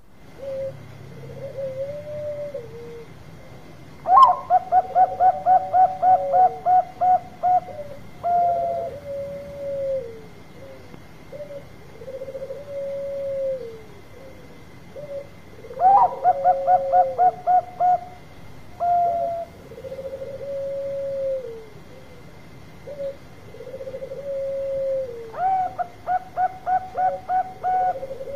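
Zebra dove (Bangkok-type perkutut) singing its cooing song: three bouts of rapid staccato notes, about ten to a bout at three or four a second, each opened by a sharp note and closed by a longer coo, with softer, drawn-out lower coos between the bouts.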